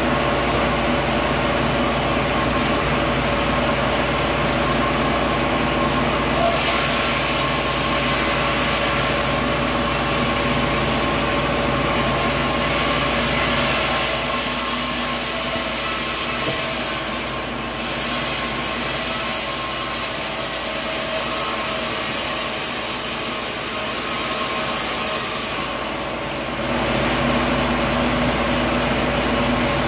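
Sawmill machinery running with a steady motor hum. About six seconds in a louder hissing saw noise joins it, as the blade cuts through coconut wood; it breaks off briefly near the middle and stops a few seconds before the end.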